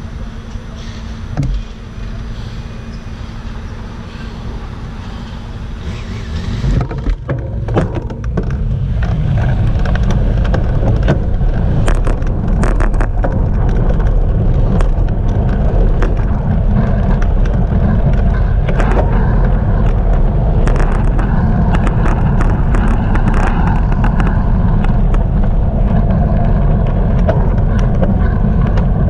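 Wind rumbling over an action camera's microphone on a moving bicycle, with road noise. It is quieter and steadier at first, with a low steady hum from the car idling just ahead, then from about seven seconds in, after a few clicks, the rumble rises and stays loud as the bike picks up speed.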